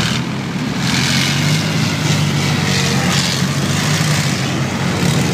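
Engines of tracked armoured vehicles running with a steady, low drone and heavy mechanical noise over it.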